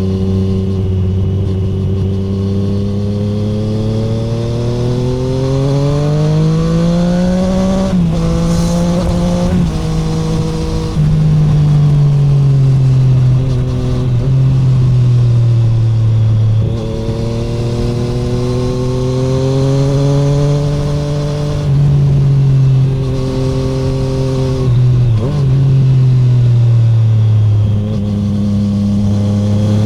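A 2017 Triumph Street Triple 765R's inline three-cylinder engine, breathing through an SC Project SC1-R titanium exhaust without its dB killer, under way. It revs up and eases off over and over, its pitch climbing, dropping with a step at each gear change, then climbing again.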